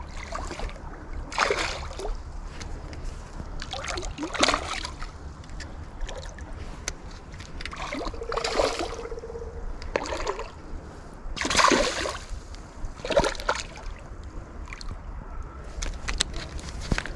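A hooked smallmouth bass splashing and sloshing at the water's surface during the fight, in several separate bursts over a steady low background rumble.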